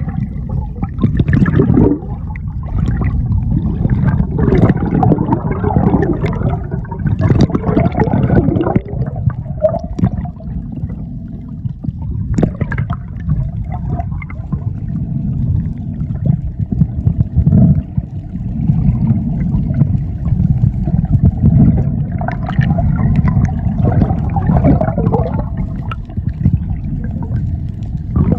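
Water gurgling and bubbling over a heavy, uneven low rumble, with a faint steady hum underneath from about the middle on.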